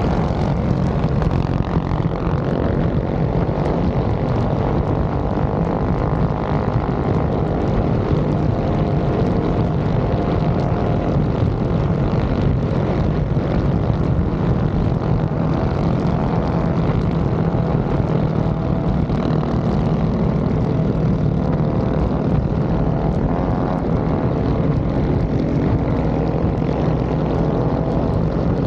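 Minibike engine running steadily under way, a small single-cylinder four-stroke of the Predator 212 kind, its pitch drifting up and down a little with the throttle.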